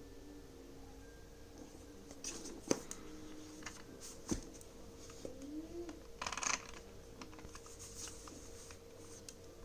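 Handling noises from an unboxing: a few sharp clicks and short rustling scrapes over a steady low hum, the loudest click about a third of the way in.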